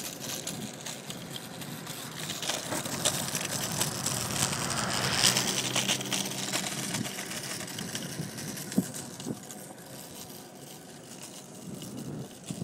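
Xooter kick scooter's small wheels rolling over pavement: a steady noisy rumble with many small rattles and clicks, and one sharper click about nine seconds in.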